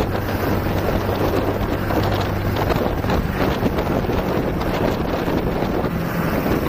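Heavy wind noise buffeting the action camera's microphone while riding a Hero Splendor single-cylinder motorcycle at highway speed, with the engine's steady low hum underneath.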